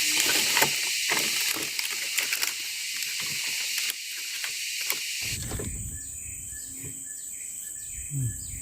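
Forest insects: a loud high drone with scattered small clicks, which about five seconds in gives way to a quieter, rhythmic pulsing chorus at roughly two or three pulses a second.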